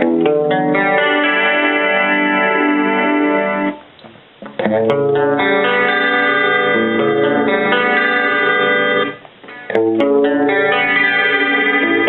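Electric guitar strummed clean through a Roland Jazz Chorus combo amp, ringing chords with a wavering shimmer. The playing stops briefly twice, about four and nine seconds in, before new chords are struck.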